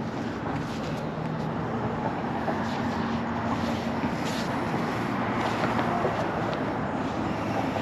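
Steady hum of road traffic, with a faint low engine drone and a few light clicks and rustles over it.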